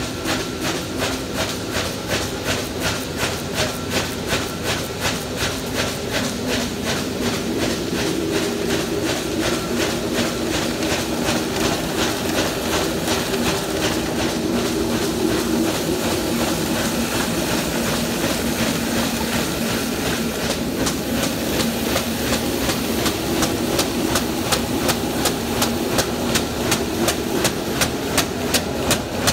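Industrial paper tuber running at speed: a steady machine noise with a regular rhythmic clatter from its moving parts as the paper web feeds through the rollers.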